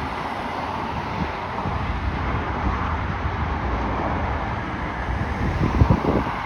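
Road and vehicle noise with wind on the microphone: a steady rumble that grows heavier about a second and a half in, with a few low wind buffets near the end.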